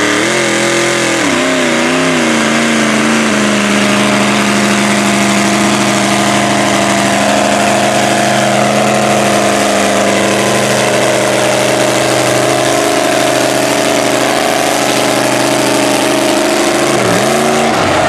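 Lifted Chevy Silverado mud truck's engine running hard through open exhaust stacks on the hood. It revs up at the launch, its pitch wavering for a few seconds as the tires bite, then holds high and steady at full throttle through the mud. Near the end it drops briefly and climbs again.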